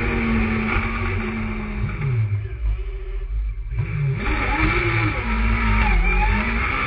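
Sprint car engine revving hard. About two seconds in the pitch falls and the sound thins as the throttle lifts, then it climbs again as the car accelerates.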